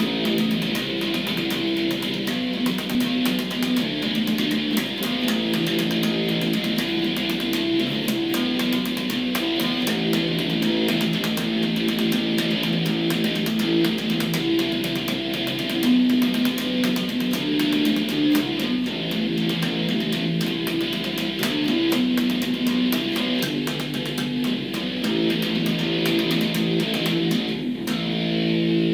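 Electric bass guitar played through an amplifier: an unbroken riff of plucked notes, changing pitch every second or so.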